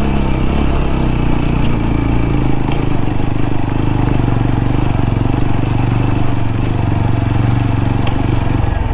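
TVS Apache RTR 200 4V motorcycle's single-cylinder engine running steadily under way, its pitch shifting a little as the rider works over a broken road.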